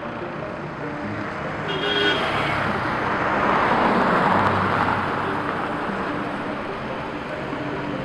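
A pickup truck driving past close by on the road, its tyre and engine noise swelling to a peak about four seconds in and then fading away.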